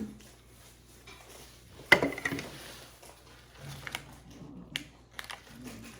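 Small hard plastic pieces clicking and knocking together as they are handled, with one sharp loud clack about two seconds in, followed by scattered lighter clicks.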